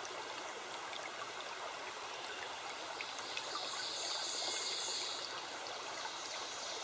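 Steady background hiss with no speech, growing a little brighter for about a second midway, with a few faint ticks.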